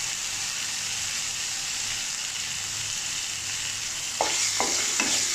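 Cumin seeds and garlic paste sizzling in hot oil in a metal pan, a steady high hiss. About four seconds in a wooden spatula starts stirring, scraping and knocking against the pan.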